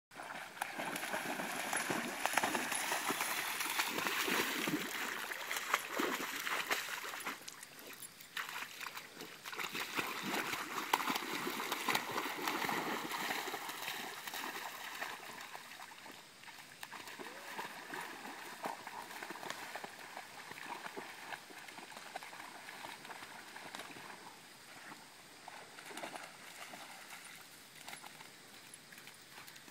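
Vizsla splashing and sloshing through shallow pond water. The splashing is louder for about the first half, then softer.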